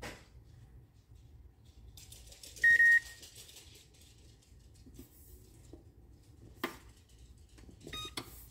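Electric oven's touch control panel beeping as a 400°F bake setting is keyed in: one long, loud, steady beep about three seconds in, a sharp click later, and short beeps near the end as the oven starts preheating.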